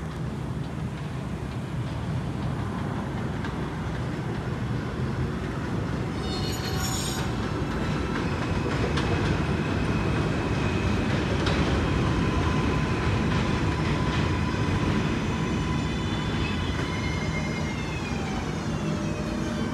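R142-series subway train (4 train) pulling into an elevated station: a steady rumble of wheels on rail that grows louder toward the middle. A brief high squeal comes about six and a half seconds in, and near the end a whine from the traction motors falls in pitch as the train brakes.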